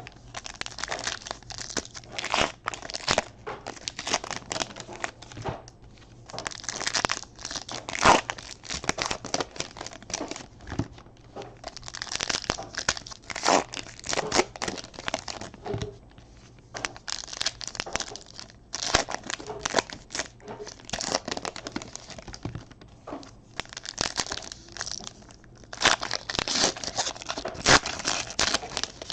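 Trading card pack wrappers being torn open and crinkled, in irregular bursts of tearing and rustling with short pauses between.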